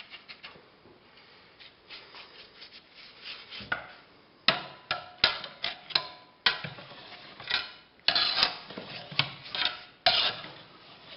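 Bristle brush scrubbing the steel reel blades and bed knife of a push reel mower with gasoline, in irregular scraping strokes with sharp knocks against the metal, washing off the lapping compound after backlapping.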